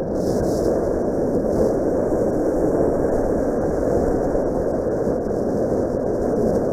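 Steady rush of wind and engine noise from a Suzuki Grasstracker Big Boy motorcycle cruising at a constant speed, picked up by the bike's dash camera microphone.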